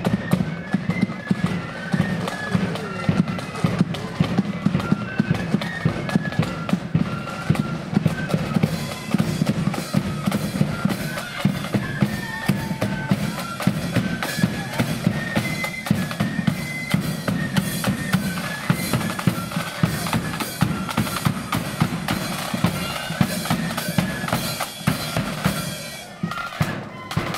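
Marching flute band playing a tune: flutes carry a high melody over snare drums and a bass drum keeping the march beat, with a brief dip just before the end.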